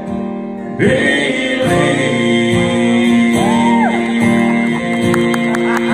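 Male country singer holding a long sung note over a strummed acoustic guitar, played live through a hall PA. Near the end the audience starts whooping and clapping.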